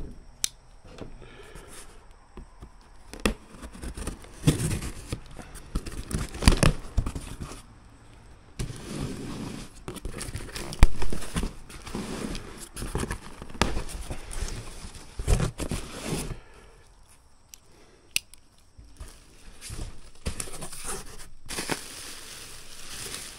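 A parcel being unpacked: cardboard and plastic wrapping rustling, crinkling and tearing, with scattered knocks and clicks.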